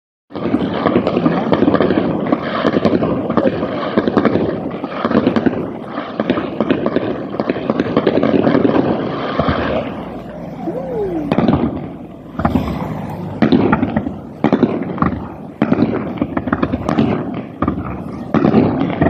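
Aerial fireworks bursting: a dense run of bangs and crackle in the first half, then separate bangs about a second apart, with one short falling whistle about halfway through.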